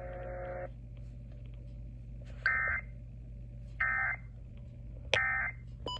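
Emergency Alert System end-of-message data bursts: three short, shrill warbling squawks of digital tones, about a second and a half apart, that mark the close of the alert.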